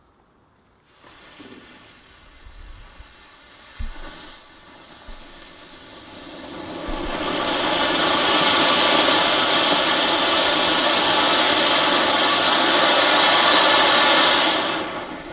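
A ground firework burns with a steady hiss. It starts faintly about a second in, swells over several seconds to a loud, even rush, then dies away quickly near the end.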